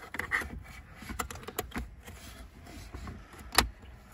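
Scattered light clicks and knocks of plastic interior trim and tools being handled in a car's stripped centre console, with one sharper knock about three and a half seconds in.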